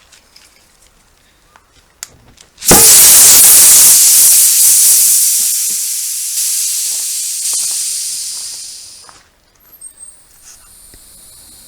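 A sudden loud rush of compressed air hissing, which fades away over about six seconds, like air pressure bleeding down during tyre work.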